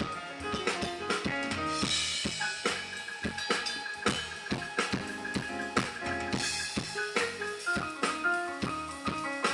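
Live band playing an instrumental passage: a Yamaha stage keyboard with a drum kit keeping a steady beat.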